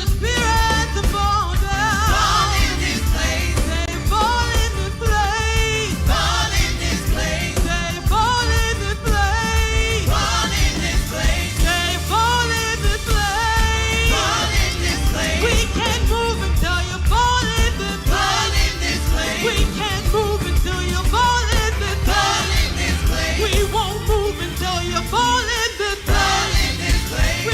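Gospel worship song with lead and group singing over a steady bass and drum beat.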